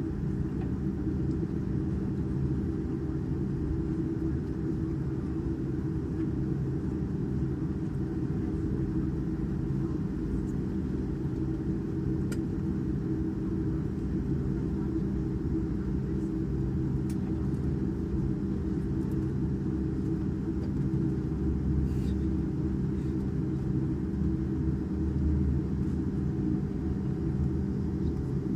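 Steady low rumble of cabin noise inside a Boeing 747-8 Intercontinental airliner on the ground before takeoff, with a few faint ticks. The rumble swells a little heavier in the last few seconds.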